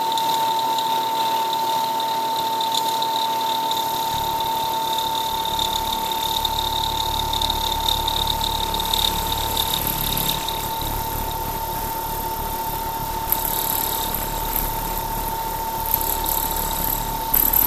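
CNC milling machine thread-milling a four-start worm gear, the spindle running with a steady high whine over the hiss of coolant spraying onto the cut. A deeper rumble joins after a few seconds, and there are a few short ticks near the end.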